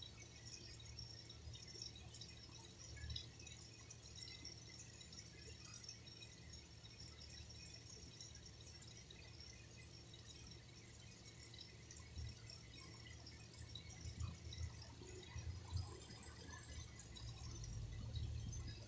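Faint water dripping and trickling, with scattered small drip ticks over a steady low rumble.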